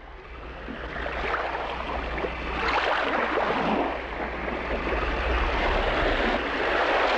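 Ocean surf: waves washing in, fading up from silence at the start and swelling and easing as each wave breaks.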